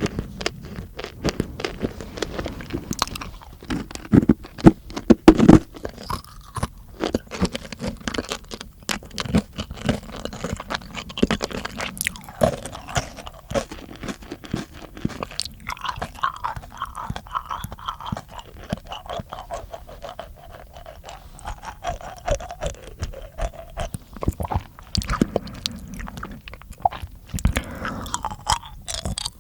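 Close-miked mouth sounds: rapid, irregular wet clicks, smacks and crunching from lips, tongue and teeth, densest about four to five seconds in.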